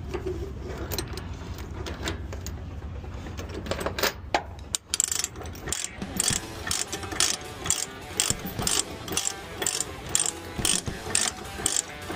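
Ratchet chain binder being cranked to tension a load chain, with evenly spaced sharp clicks about two to three a second from about five seconds in. Before that there is a low steady hum with a few scattered clicks.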